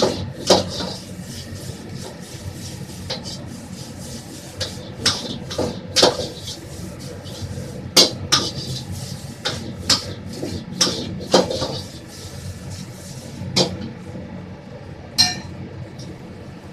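Cooking utensils knocking and clanking against metal pots and pans, in irregular strikes about one or two a second that grow sparser near the end, over a steady kitchen hum.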